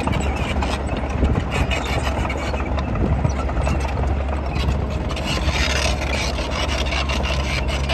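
Crawler bulldozer at work pushing soil level: its diesel engine runs with a steady low drone under a rapid clatter and scraping from the steel tracks and blade.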